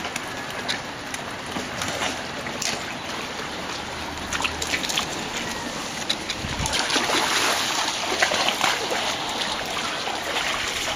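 Water splashing and trickling as dogs move through shallow irrigation floodwater, with scattered small splashes over a steady wash of water that grows a little louder about halfway through.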